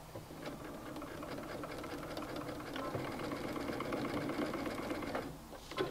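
Electric sewing machine running a zigzag stitch through elastic and knit fabric, a fast, steady run of needle strokes lasting about five seconds before it stops. A short click follows just before the end.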